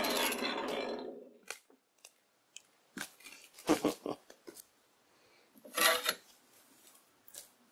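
Vintage power hacksaw cutting steel square tube, its blade strokes making a rhythmic metallic rasp that fades out about a second in as the cut finishes. After that come a few scattered metal clunks and knocks, the loudest about six seconds in.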